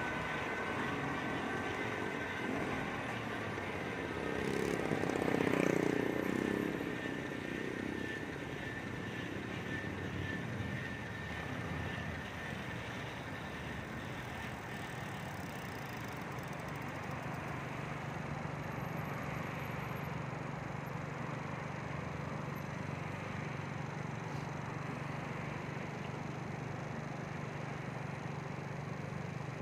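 Traffic noise heard while cycling along city streets, with a louder vehicle passing about five seconds in and a steady low hum in the second half.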